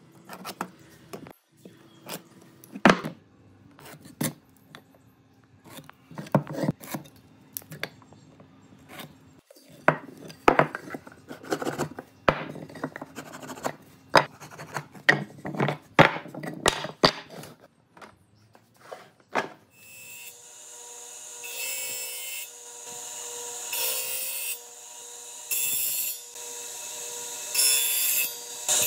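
Hand work on pine boards: scattered knocks of tools and wood, then a run of quick rubbing strokes of a sanding block on the wood. About twenty seconds in, a disc sander starts running steadily, with a loud rasp each time the board's end is pressed against the abrasive disc, several times.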